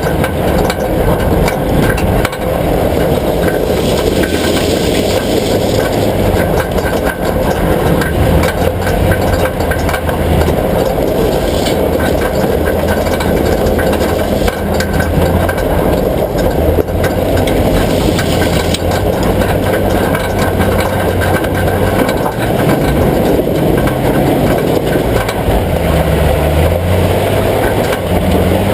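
A vehicle running, with a steady engine drone and scattered brief clicks or knocks.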